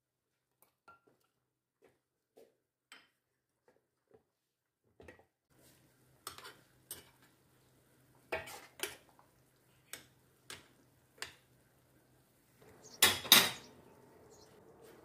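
Stainless steel ladle clinking and scraping against a stainless steel pot and a glass jar while hot jam is ladled into the jar. Faint scattered taps at first, then a run of sharper clinks, the loudest knocks near the end.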